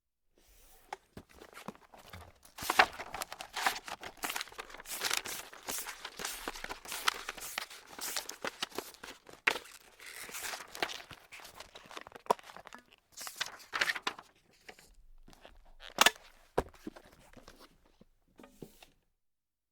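Paper crumpled in the hands, a dense, irregular crackling and crinkling that comes in bursts. It thins out near the end into a few separate crackles with short pauses between them.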